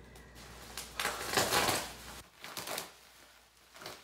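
Plastic bubble wrap crinkling and crackling as it is cut with scissors and pulled apart from a box. The loudest stretch, about a second long, comes about a second in, with shorter crinkles near three seconds and again near the end.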